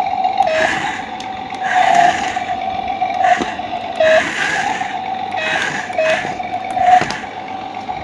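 Remote-control toy excavator's small electric gear motors whirring in about seven short bursts as its arm and bucket move. A steady high hum runs underneath and dips briefly in pitch at some of the bursts.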